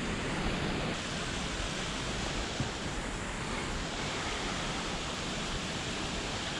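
Steady rush of flowing river current, an even hiss with no breaks.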